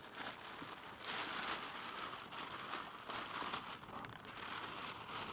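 Clear plastic bag wrapped over a miter saw crinkling continuously as it is handled and pulled off, strongest from about a second in.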